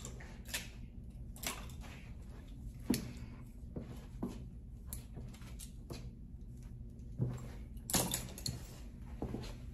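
Scattered clicks and light knocks of barber tools being handled, about eight at uneven intervals, with the loudest near the end, over a faint steady low hum, echoing slightly off the tiled walls.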